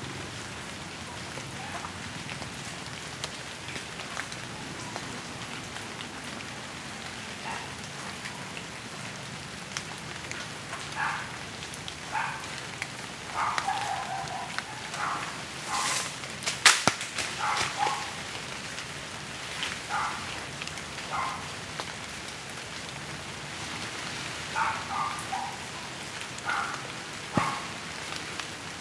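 Steady rain-like hiss. Short chirping calls are scattered through the second half, and there is one sharp crack a little past halfway.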